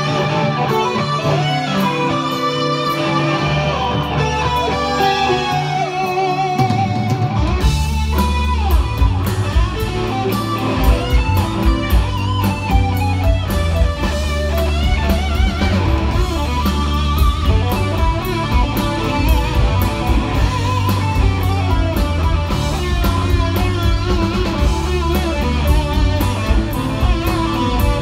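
Electric guitar played live in a rock band, lead notes bent and wavering; heavy low notes and drums come in about seven and a half seconds in and keep a steady beat under the guitar.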